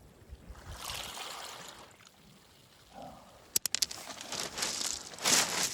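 A wave washing up over a pebble beach, then sharp clicks and a growing crackling rattle of stones knocking together in the surf.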